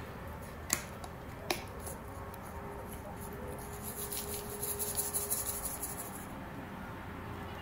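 Seeds sprinkled from a shaker jar and by hand onto raw dough logs on a paper-lined baking tray: two soft clicks, then a light, fast pattering of falling seeds from about three and a half seconds in to about six.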